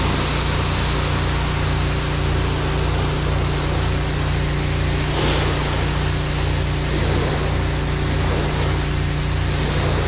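Fire hose nozzle spraying a steady stream of water onto the hot, burned-out skid steer, a continuous hiss of spray, over an engine running steadily at a constant speed.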